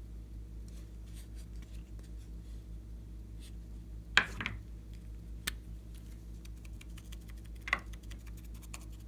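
Glossy slime being handled and mixed by hand: scattered small sticky clicks and crackles, with louder pops about four, five and a half, and nearly eight seconds in, over a low steady hum.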